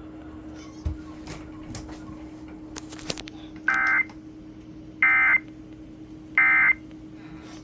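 Emergency Alert System end-of-message data signal: three short bursts of shrill, warbling digital tones, about 1.3 seconds apart, over a faint steady hum. The bursts mark the end of the alert message.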